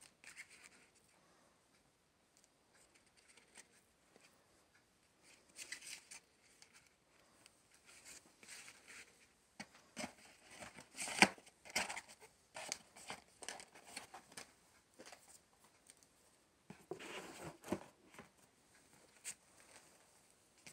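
Cardboard CD wallets and a record jacket being handled: paper-card sliding, rustling and light taps coming in short irregular bursts. The loudest burst is just past the middle, with a longer one about three-quarters through.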